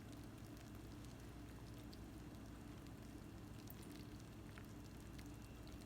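Near silence: a faint steady low hum with sparse, faint crackles.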